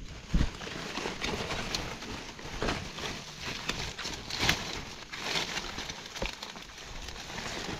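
Footsteps crunching and rustling through undergrowth, irregular small cracks and scuffs with no steady rhythm.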